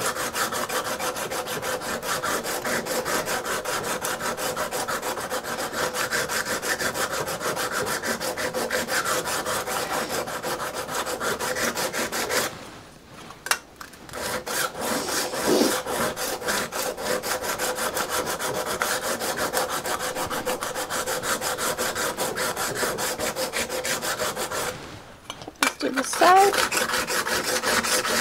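A card scraper's edge being rubbed back and forth on a sharpening stone in quick, steady strokes. The strokes stop briefly twice, about halfway through and a little before the end. This is the edge being honed flat and square on the stone.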